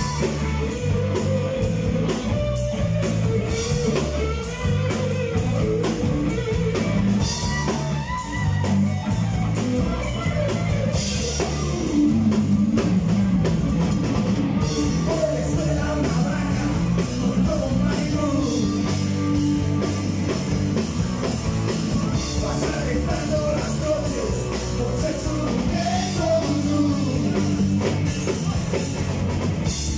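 Live rock band playing a song: drum kit, electric bass and electric guitars with a melody line over them, at a steady beat.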